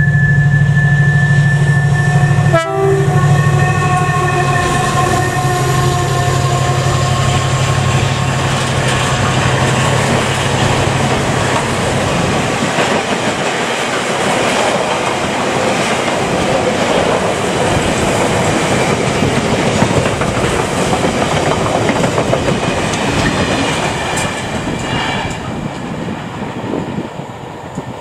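Class 70 diesel-electric freight locomotive passing close with its V16 engine working, its high whine dropping slightly in pitch as it goes by. Then a long rake of flat wagons loaded with rails clatters past, the wheel noise fading as the train draws away.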